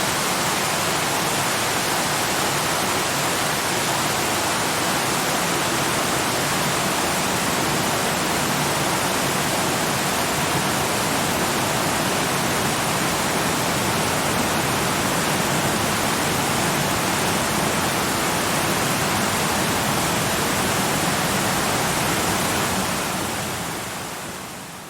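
Waterfall rushing in a steady, even roar of falling water, fading out near the end.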